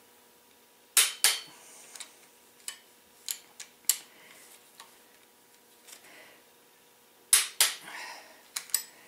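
Torque wrench on a long extension tightening ARP connecting-rod bolts on a VW crankshaft to 25 lb-ft: two sharp metallic clicks about a second in and again about seven seconds in, with lighter ticks between.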